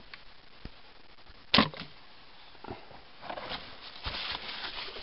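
Scuffs and scrapes of cavers crawling over rock and mud in a narrow cave passage, with one sharp knock about a second and a half in, the loudest sound, and a stretch of denser rustling near the end.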